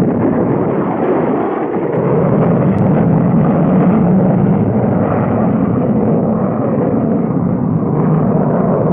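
Cartoon spaceship rocket-engine sound effect: a loud, steady rushing rumble that cuts in abruptly just before and holds unbroken.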